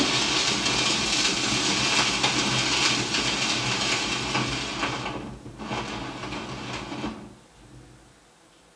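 Hiss and crackle of an old Edison disc record's worn, cracked surface spinning under a turntable stylus, with no music left on it. It dips about five seconds in and fades out near the end.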